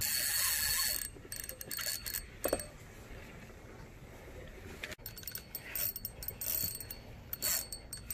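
Daiwa spinning reel being cranked by hand, its gears whirring and clicking in short spells. It opens with a loud hiss lasting about a second.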